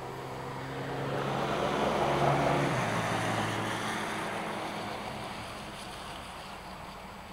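A motor passing by, with a rushing hiss: it swells to its loudest about two seconds in, drops in pitch as it goes past, then fades.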